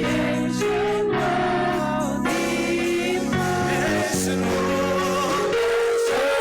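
Gospel music with choir singing over sustained chords.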